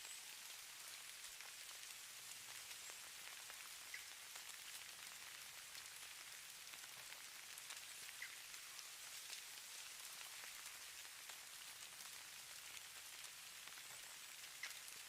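Faint, steady hiss of light falling precipitation, presented as falling snow, with scattered tiny ticks as it lands.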